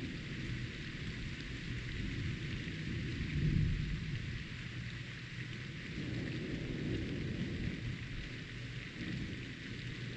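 Steady rain falling in a thunderstorm, with low rolling thunder that swells briefly about three and a half seconds in.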